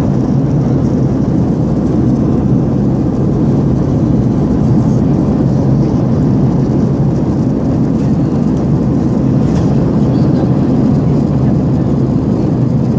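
Steady cabin noise inside an airliner during its descent to land: the constant sound of the engines and rushing air, deepest in the low range, with no change through the stretch.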